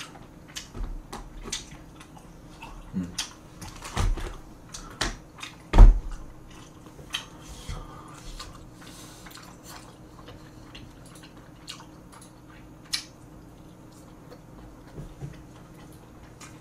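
Mukbang eating sounds: wooden chopsticks and a metal spoon clicking against plastic takeout containers while a dumpling is picked up and chewed, in scattered sharp clicks with one heavier knock about six seconds in.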